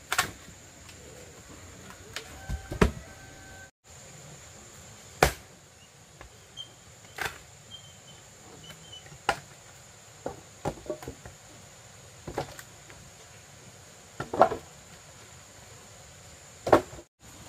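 Wood being split and handled: sharp wooden knocks at irregular spacing as an axe bites into a log, then split lengths of wood clatter as they are picked up and dropped on a pile. A steady high insect drone runs underneath.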